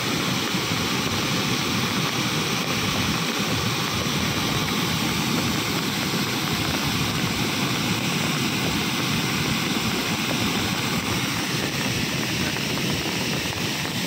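Bhadbhada waterfall in heavy flow, a wide rocky fall of muddy river water making a steady, unbroken rush.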